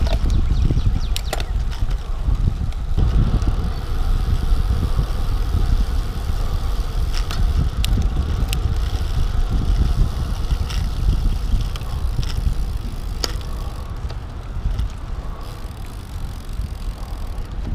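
Wind rumbling over a handlebar-mounted microphone as a Trek 5500 carbon road bike rolls along pavement, with a few sharp clicks scattered through it. The rumble eases a little near the end as the bike slows.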